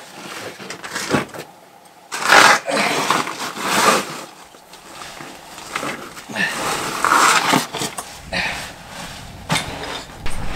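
Backpack scraping and bumping against sandstone as it is hauled up a rock ledge on a strap, in irregular bursts of scrapes and rustles with a few knocks, loudest a couple of seconds in.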